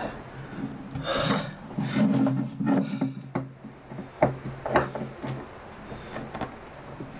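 Handheld wire cutters snipping and crunching at the braided fibre strap of a Litelok flexible lock: a series of separate short cuts, with a steady low hum underneath.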